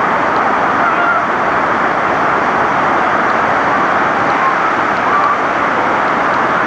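Steady roar of a waterfall, the water falling without a break.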